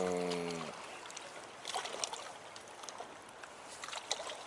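Small waves lapping against the rocky shore and a wooden post, with a few brief soft splashes about two seconds in and near the end. It opens with the held end of a man's drawn-out spoken vowel.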